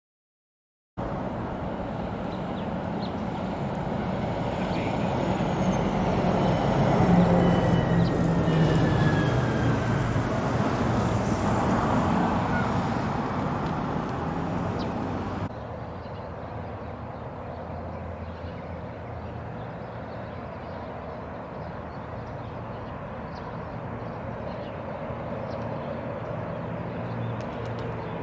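Outdoor street ambience of steady road traffic noise, swelling to its loudest about seven seconds in and stepping down to a quieter, duller hum about halfway through. A few faint high chirps sound in the first half.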